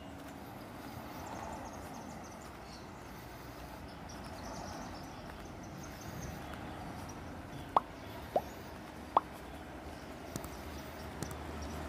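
Outdoor ambience of a quiet residential street: a steady, even background hiss, with three short, sharp pops in quick succession about two-thirds of the way through.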